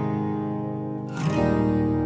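Background music: acoustic guitar strumming chords that ring on, with a new chord struck a little over a second in.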